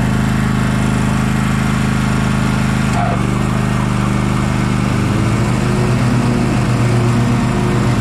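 Toro Timecutter 50 zero-turn mower engine running steadily. About three seconds in its tone shifts, and from about five seconds a deeper, slightly louder hum sets in as the cutting blades are engaged through the broken PTO switch, worked with needle-nose pliers.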